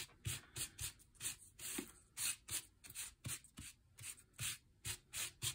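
Oxide ink pad swiped back and forth across crumpled brown paper, making a run of short scuffing strokes at about three a second.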